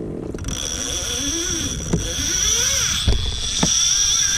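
Baitcasting fishing reel's drag giving out line in a steady high-pitched whine as a hooked fish runs, with a few sharp knocks and low wind noise underneath.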